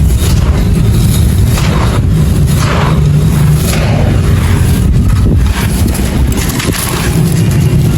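Dry light grey concrete claypot being crushed and crumbled: dense gritty crunching with a fresh burst of crackle about once a second, over a heavy low rumble.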